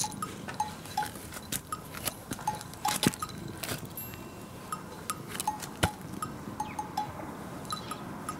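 Small jingle bell on a cat's collar clinking and jingling in short, irregular bursts as the cat rolls over and gets up.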